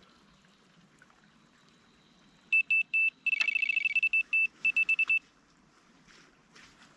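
Delkim electronic bite alarm beeping: a few single beeps about two and a half seconds in, then rapid strings of high beeps, part of them with a slightly lower second tone, stopping about five seconds in. This is a bite: the line is being pulled through the alarm.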